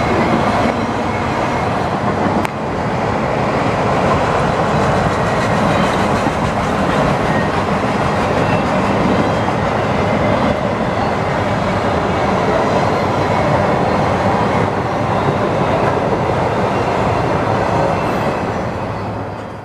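Auto-rack freight train rolling past, a steady loud rumble and clatter of its wheels on the rails, fading out near the end.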